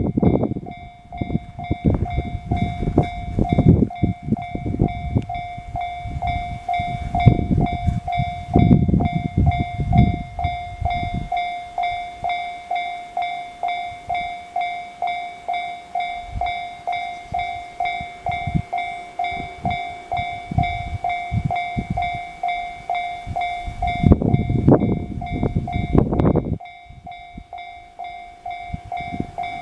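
Japanese railway level-crossing alarm ringing: a steady electronic clang repeating about one and a half times a second throughout. Heavy low rumbling and buffeting comes through for the first ten seconds or so and again a few seconds before the end.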